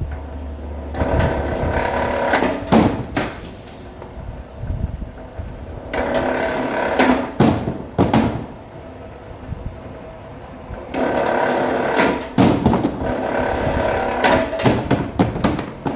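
Electric wire stripping machine running in three spells as wire is fed through its feed rollers, a steady motor whine with sharp clicks and knocks mixed in; the manual handwheel spins along as it runs.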